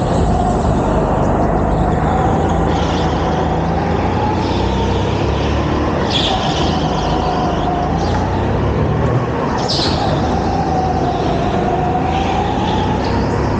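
Go-kart running at speed, heard on board: a loud, steady roar with a motor note that slowly rises and falls through the corners. Two brief high tyre squeals come about six and ten seconds in.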